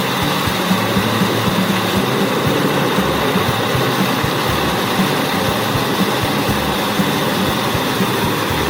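The 600-horsepower engine of a Vermeer HG6800TX tracked horizontal grinder running steadily under load, with dense, irregular knocking as it grinds up trees.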